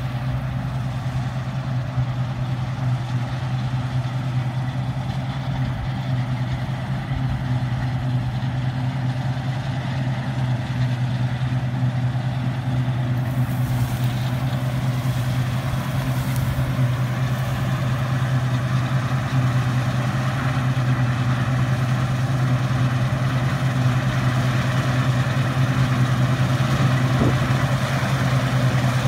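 Combine harvester's diesel engine running steadily while it cuts wheat, growing gradually louder as it comes closer.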